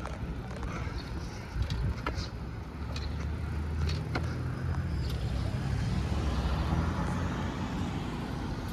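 City street traffic and the steady low rumble of riding along a bike path, with a few sharp clicks and ticks in the first half.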